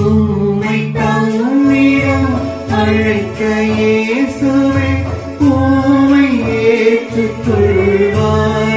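Music: a voice singing a melody in long held notes over electronic keyboard accompaniment.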